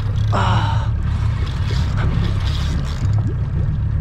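Boat engine running steadily at trolling speed, a constant low drone under a rush of wind and water.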